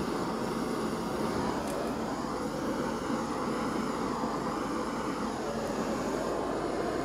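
Small handheld torch burning with a steady rushing flame, used to bring up cells in wet acrylic pouring paint; it cuts off abruptly at the very end.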